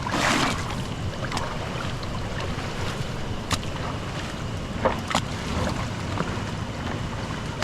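Water splashing and sloshing around elephants being bathed in a muddy pool, with a few sharp clicks and a splash just after the start. Steady wind rumble on the microphone runs underneath.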